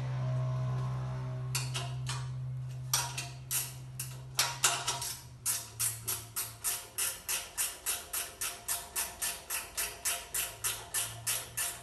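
Rain-gutter downpipe machine running: a steady motor hum, then sharp clicks, irregular at first and, from about halfway, settling into an even beat of about three a second.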